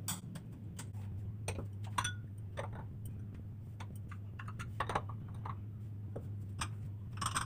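Small containers, jars and steel utensils being handled and set down on a kitchen shelf: irregular light clicks and clinks, over a steady low hum.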